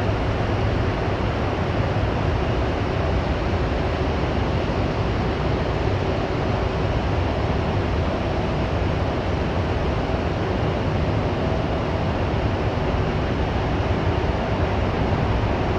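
Steady low rumbling drone of background noise with a faint steady hum in it, unchanging and without distinct events.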